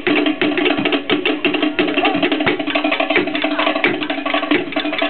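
Live Tahitian drumming for ori tahiti dance: a fast, driving rhythm of sharp wooden strikes, typical of to'ere slit drums, over the beat of a larger drum.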